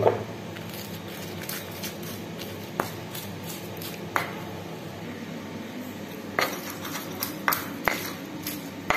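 Stone pestle pounding and grinding garlic, candlenut and spices in a stone mortar (ulekan and cobek), giving sharp stone-on-stone knocks: a couple spaced apart, then a quicker run of knocks about six seconds in.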